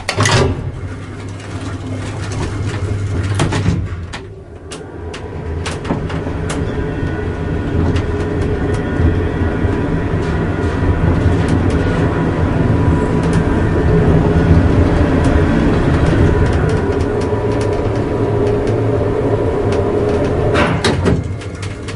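A lift (elevator) going up: its drive runs with a steady low hum and the car rattles, growing slowly louder. Sharp clanks come just after the start, around three and a half seconds in, and again near the end.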